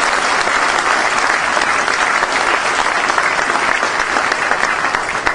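Audience applauding: many hands clapping at a steady level, easing off near the end.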